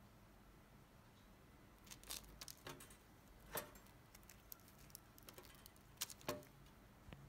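Faint, scattered light clicks and taps of a hand handling a slice of toast and a pop-up toaster over near silence, sharpest about three and a half seconds in and twice around six seconds in.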